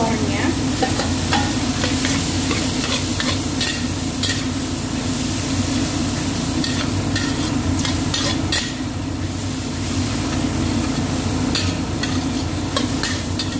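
Cucumber and egg sizzling in a hot stainless steel wok, with a metal spatula scraping and knocking against the pan again and again as it stirs. Under it runs a steady low hum from the kitchen exhaust fan.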